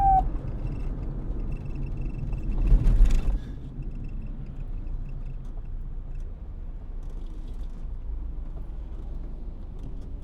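A police siren's falling wail cuts off at the very start, leaving a steady low vehicle engine rumble. A louder rushing swell comes about three seconds in.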